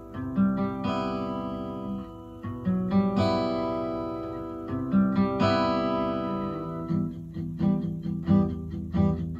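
Background music: acoustic guitar, strummed and picked, moving into quicker notes near the end.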